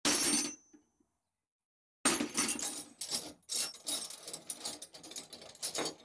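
Steel spanners clinking and clattering against each other as a hand rummages through a pile of them: one clatter at the start, then after a short pause a quick, irregular run of metallic clinks.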